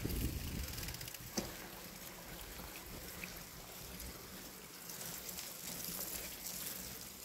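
Bicycle rolling over a muddy dirt track: steady tyre and rattle noise, with a sharp knock about one and a half seconds in.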